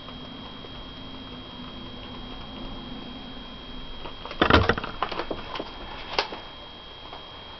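A quick flurry of soft taps and clicks on a flexible rubber keyboard about four and a half seconds in, then one more tap a moment later.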